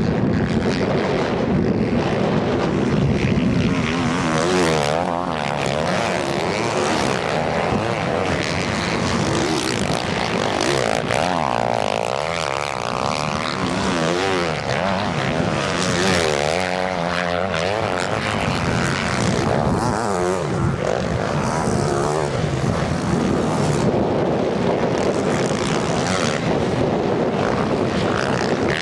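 Several motocross bikes racing at once, their engines revving up and down through the gears and overlapping one another, the pitch rising and falling repeatedly.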